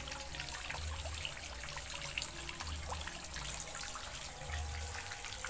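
Steady trickle of running water, with scattered small clicks.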